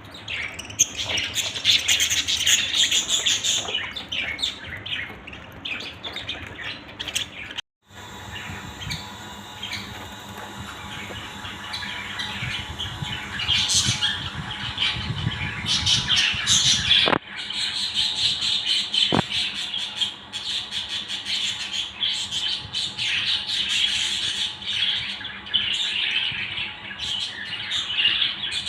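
A group of budgerigars chattering, chirping and squawking without pause, with a brief dropout about eight seconds in.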